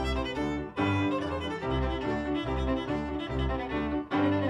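Music score for a silent comedy: a violin melody over other strings and a bass line pulsing on the beat.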